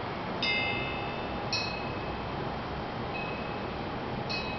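Homemade wind chime of four hanging 1-1/4-inch square steel tubes, cut to lengths meant to sound C, E, G and B, struck four times by a cast-iron striker. Each strike is a bright ring of several high tones that dies away within about a second; the third strike is fainter. A steady hiss runs underneath.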